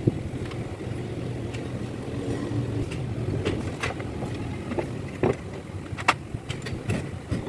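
Scattered metal clinks and knocks of tools being worked on a truck engine, about eight in all and the sharpest about six seconds in, over a steady low rumble.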